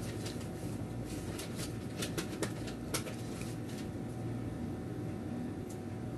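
A smartphone handled in the hands, giving a scatter of short light clicks and taps in the first half, over a steady low background hum.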